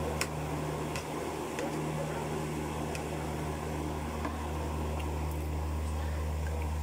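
A steady low mechanical hum, with a few light, sharp clicks of a metal spoon against a plate and bowl during eating.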